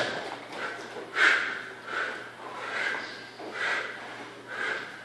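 Forceful, rhythmic breaths out from people working through kettlebell snatches, a little more than one breath a second.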